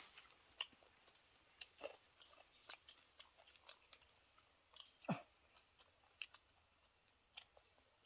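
Faint, scattered clicks and crunches of people eating with their hands and chewing, with one sharper knock about five seconds in.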